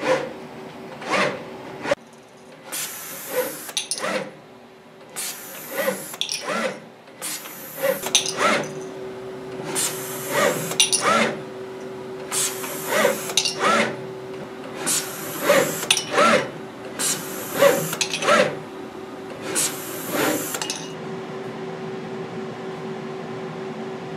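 Denso six-axis robot arm running pick-and-place moves, about one cycle every two to three seconds: its servo motors whine up and down as each move speeds up and slows, with a short hiss at each move. A steady hum runs underneath, and the moves stop a few seconds before the end, leaving only the hum.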